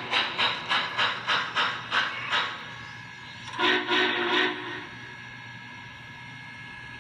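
Sound system of an MTH RailKing Imperial Union Pacific Big Boy 4-8-8-4 model locomotive: steam chuffs about three a second, fading after about two and a half seconds. A short whistle blast follows about three and a half seconds in.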